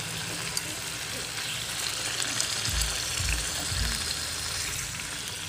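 Marinated pork sizzling as it fries in a shallow layer of oil in a pan, a steady hiss, with three low thumps around the middle.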